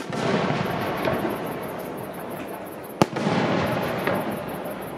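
Aerial firework shells bursting: two sharp bangs about three seconds apart, each followed by a long, fading rumble.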